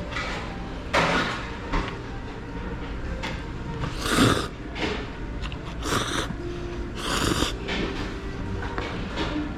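Background music with about four short hissing noises of someone eating.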